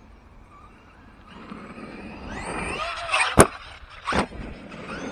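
Electric RC truck's motor whining as it speeds up and slows. A sharp crack about three seconds in, the loudest sound, is followed by a second knock about a second later.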